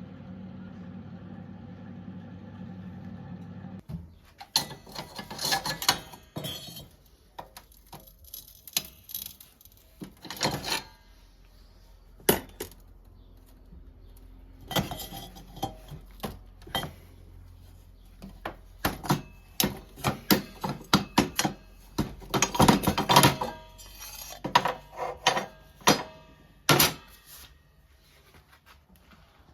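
A steady low machine hum that stops about four seconds in, followed by irregular metal clanks, knocks and clattering in short flurries, the loudest near the middle and again later on.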